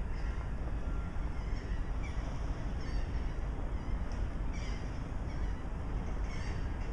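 A steady low rumble of wind on the microphone, with short bird calls several times over it.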